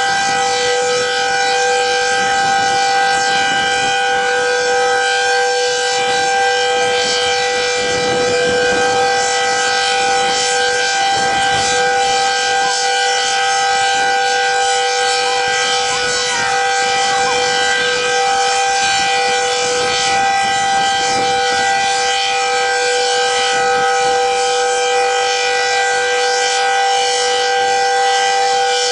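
Decot Red Arrow Model 12 outdoor warning siren sounding a full-alert steady tone: two steady pitches held together at an unchanging level, with no rise or fall.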